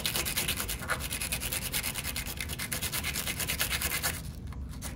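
Brass pen tube rubbed rapidly back and forth on sandpaper: a fast, scratchy rasping that roughens the smooth tube so glue will grip it. The scratching lightens about four seconds in.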